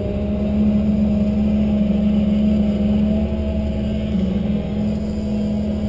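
Tigercat 1075B forwarder's diesel engine and hydraulics running steadily while the crane works, heard inside the cab: a constant drone with a higher whine above it.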